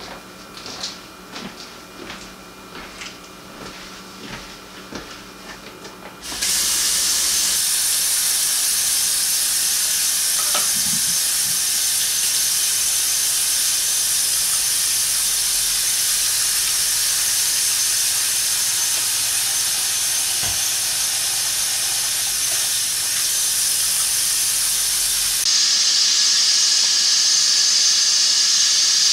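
Kitchen faucet running hard into a sink, a loud steady hiss that starts abruptly about six seconds in and turns brighter near the end. Before it come a few faint clicks and knocks of handling.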